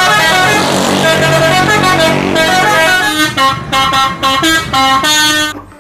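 Bus musical air horn (the Indonesian "telolet" horn) playing a tune. Chord-like notes are held and change pitch for the first couple of seconds, then come as a quick run of short separate blasts. The horn cuts off just before the end.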